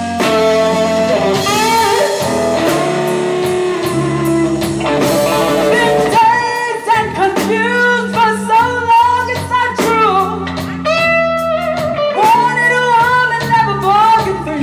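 Blues-rock band music with guitar and a singing voice, the bending melodic line coming to the fore about six seconds in.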